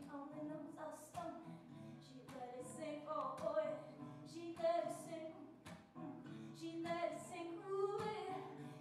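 A woman singing with a strummed acoustic guitar accompaniment.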